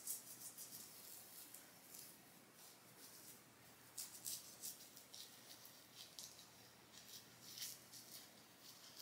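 An ordinary toothbrush scrubbing a puppy's teeth: faint, quick, scratchy brushing strokes in a few short runs.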